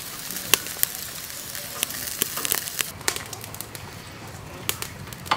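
Sausages sizzling on a wire grill over a charcoal fire, with frequent sharp crackles and pops.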